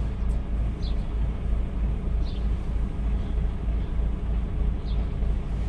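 DAF truck's diesel engine idling, a steady, pulsing low rumble heard inside the cab, with a few faint short high chirps.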